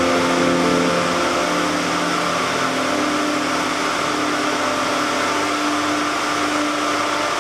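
Steady running noise of a cotton mill's simplex roving frame, its spindles and bobbins turning. A few held tones sit over it and change pitch twice along the way.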